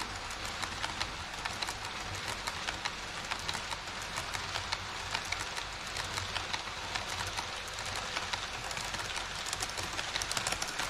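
HO scale Twilight Express passenger coaches rolling past on KATO Unitrack across a model truss bridge: a steady rush of rapid, irregular clicks from the wheels over the rail joints, with running hiss. It grows a little louder near the end.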